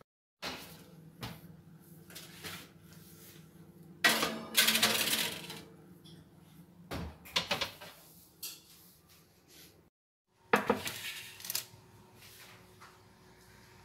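Metal baking tray clattering and clinking against the oven rack and hob as it is handled, with the loudest rattle about four seconds in and another just past ten seconds. A steady low hum runs under the first half, and the sound cuts off abruptly twice.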